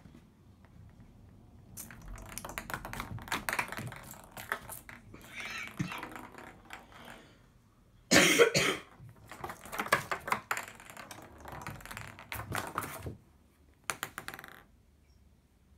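Paper and card rustling and crackling as a cat scrambles about on the sheets lining a bathtub, in a run of scratchy bursts with the loudest crackle about eight seconds in and a last short burst near the end.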